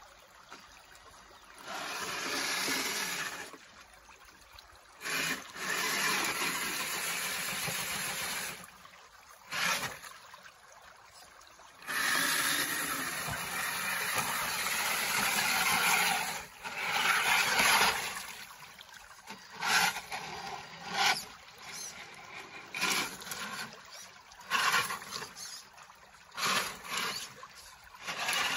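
Radio-controlled car driving through shallow creek water and over wet gravel in bursts of throttle, its motor whining and tyres churning. The first half has a few long pushes of several seconds; later it goes in short quick blips, with the creek trickling in the gaps.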